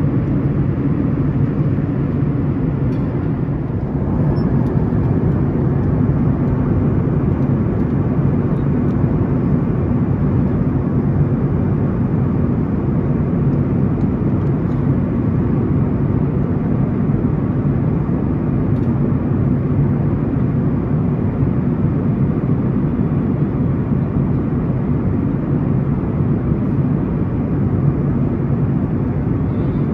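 Steady cabin drone of a Boeing 737-900ER in flight, its CFM56-7B turbofan and the airflow heard from a window seat beside the engine: a deep, even roar with no change in pitch.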